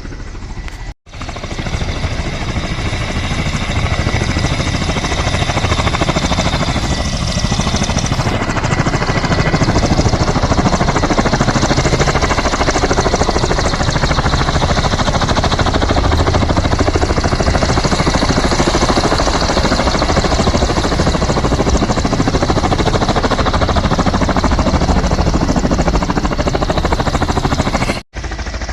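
Emergency helicopter running close by, a loud, steady, rapid rotor chop that builds over the first few seconds and then holds. The sound drops out briefly about a second in and again near the end.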